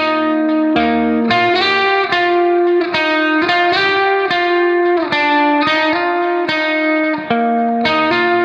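Background music: a guitar playing a melody of plucked notes, each struck sharply and dying away.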